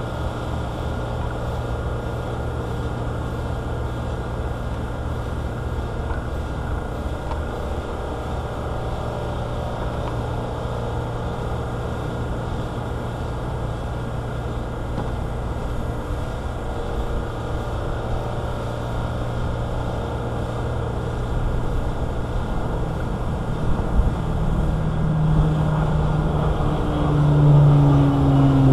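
A steady, low motor drone. Near the end it gets louder, and pitched tones come in that slide slightly down.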